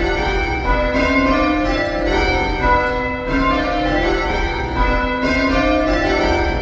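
Church tower bells being change-rung, swung full circle by ropes: a steady, even succession of bell strikes, each tone ringing on under the next.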